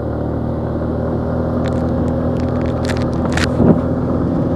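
Motorcycle engine running steadily while riding, with a few sharp rattles and knocks about two to three and a half seconds in from a rough, bumpy road.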